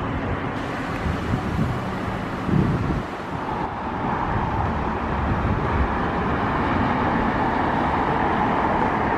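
Wind buffeting the microphone over a steady rumble of distant road traffic, with a steady mid-pitched hum joining about three and a half seconds in.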